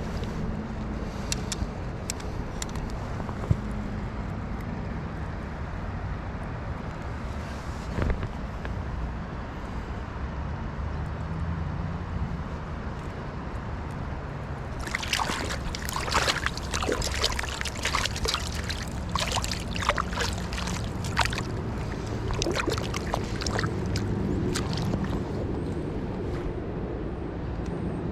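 River water running steadily, with a spell of close splashing and sloshing from about halfway through that thins out toward the end.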